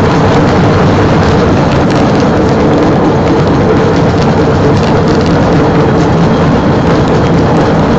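A small rail vehicle running steadily along old track: a constant engine drone under a dense, even noise.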